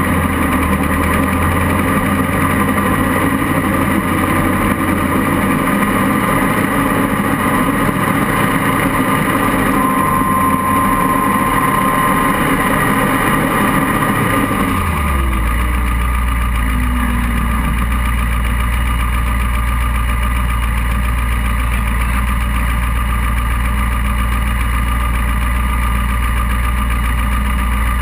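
Off-road buggy's engine running steadily; about halfway through the revs drop and it settles into a deeper, steady idle.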